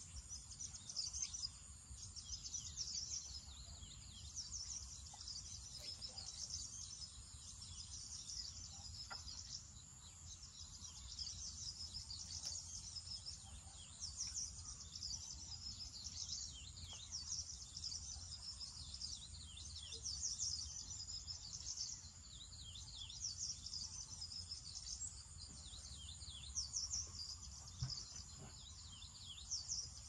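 Birds chirping, many short high chirps that come and go, over a steady high-pitched drone of crickets or other insects, with a faint low rumble underneath.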